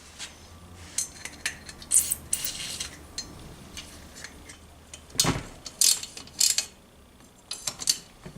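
Metal hand tools clicking, scraping and clanking against a Tomos A35 moped engine being dismantled, with ratchet-like clicks. A few louder knocks come about five to six and a half seconds in.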